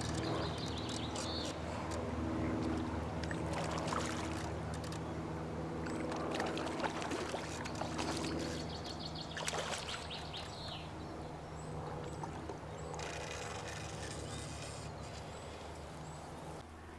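Water splashing and sloshing as a hooked common carp is fought on a float rod and brought to the net, with scattered clicks and knocks from the tackle.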